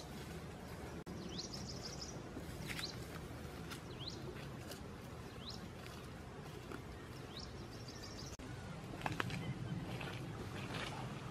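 Wild birds calling: short rising chirps repeated every second or two, with a couple of brief high buzzy trills. Faint dry rustling clicks join near the end.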